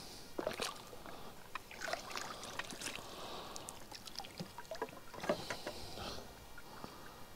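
Light sloshing and dripping water with scattered clicks and knocks, a little louder about five seconds in.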